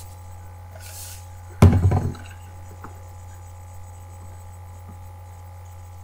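A brief hiss about a second in, then a single dull thump about half a second later, over a steady low electrical hum.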